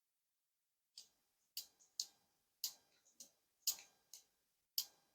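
A series of light, sharp clicks at uneven spacing, about eight of them, starting about a second in.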